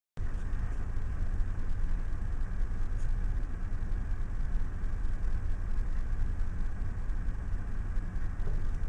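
A steady low rumble of background noise, with no distinct knocks or events.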